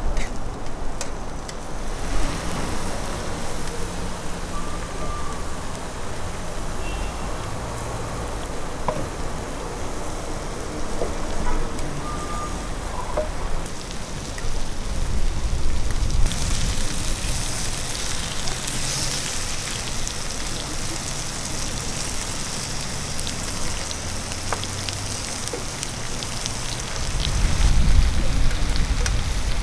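Meat sizzling on a hot griddle plate over a grill: a steady hiss that gets brighter from about halfway through.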